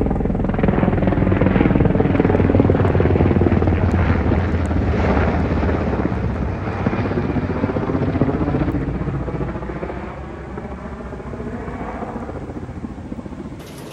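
Helicopter flying overhead, the rapid, even beat of its rotor blades loud at first and fading over the second half as it moves away.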